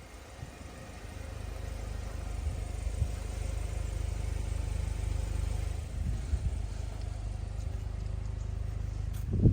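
Volkswagen Golf 8 GTI's 2.0-litre turbocharged four-cylinder petrol engine running with a low, steady rumble that grows louder over the first few seconds. A sharper, louder burst comes near the end.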